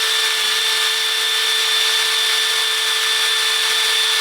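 Electric drill running at a steady, constant speed with a high whine, drilling out a broken grease-fitting hole in an outboard motor's steering bracket.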